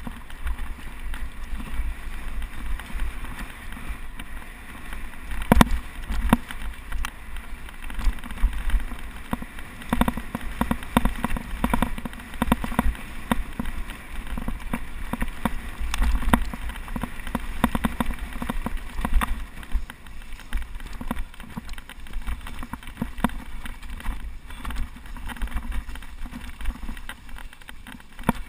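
Mountain bike clattering down a rough dirt and rock singletrack at speed: a dense, irregular run of knocks and rattles from the tyres, chain and frame over stones, over a low rumble, with one hard knock about five and a half seconds in.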